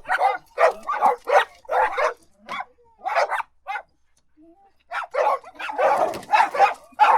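Dog barking repeatedly in quick short barks, two or three a second. The barking breaks off for about a second halfway through, then starts again, faster and more crowded.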